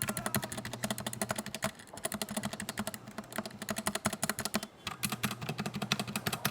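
Fast typing on an AJAZZ K870T mechanical keyboard with factory-lubed Huano red linear switches: a rapid run of keystrokes with a few short pauses, a sound called very smooth.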